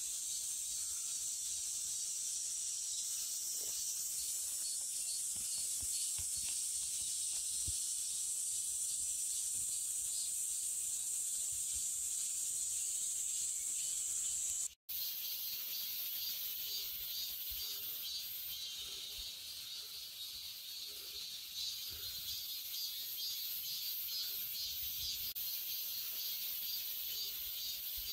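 Steady high-pitched insect chorus. It cuts out for a split second about halfway through and comes back with a faint pulsing rhythm.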